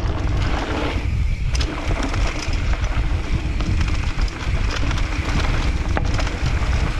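Wind buffeting a GoPro's microphone as a mountain bike runs fast down a dirt trail: a steady rush over low tyre rumble, with scattered clicks and knocks from the bike over bumps.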